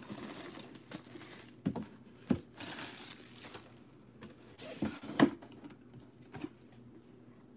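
Plastic shrink-wrap crinkling as a sealed card box is unwrapped and handled, with several light knocks of the box on the tabletop; the loudest knock comes about five seconds in.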